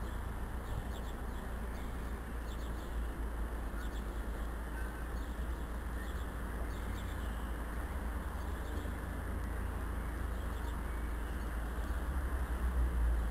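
Small birds chirping faintly and repeatedly over a steady low rumble that gets louder near the end.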